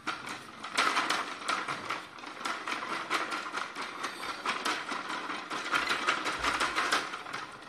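Plastic walking toy dog on a leash-stick moving across a stone floor: its walking mechanism runs with a rapid, steady clicking and clattering.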